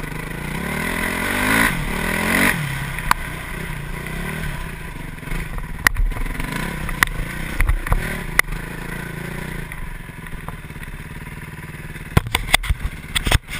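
Dirt bike engine running under way, revving up with rising pitch over the first two seconds or so, then easing off to a lower, steadier note. Scattered sharp knocks come through a few times in the middle and several near the end.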